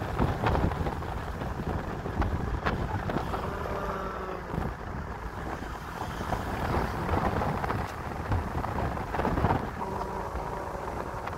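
Wind buffeting the microphone through a car's open side window, with the rumble of the car and its tyres on the road as it drives along.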